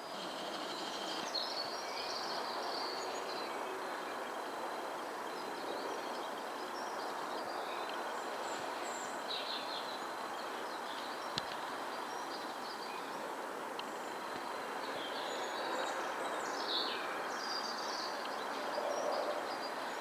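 Steady background noise with small birds chirping now and then, recorded by a camcorder's built-in microphone.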